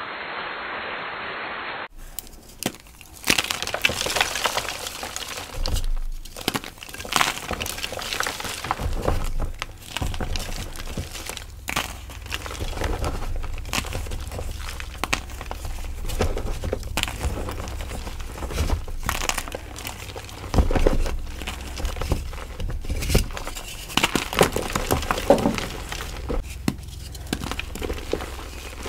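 Blocks of gym chalk crunching and crumbling, with many irregular sharp cracks and crackles. A steady muffled hiss comes first, for about two seconds.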